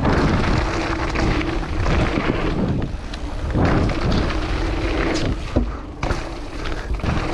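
Downhill mountain bike descending a dirt trail: wind rushing over the camera microphone and tyres rumbling on the dirt, with a few sharp knocks in the second half.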